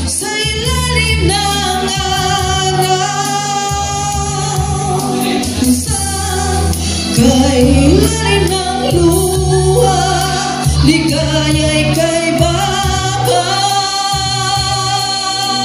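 A woman singing a Tagalog ballad into a handheld microphone over a karaoke backing track, holding several long notes.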